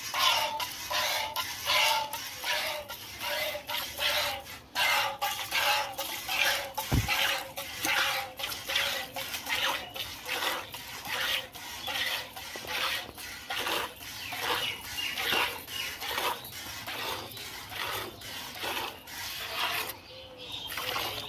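Milk squirting into a metal pail as a cow is milked by hand: short hissing jets in a steady rhythm of about two a second.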